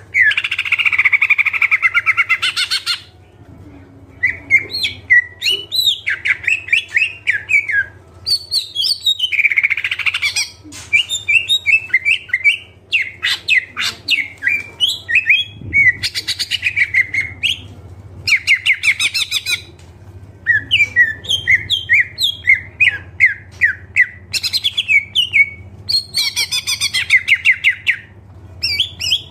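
Green leafbird (cucak ijo) singing loudly and without pause in its full repertoire, including notes mimicked from other birds. Its song is a varied mix of rapid buzzy trills and runs of short, sharp chattering notes. A faint steady low hum runs underneath.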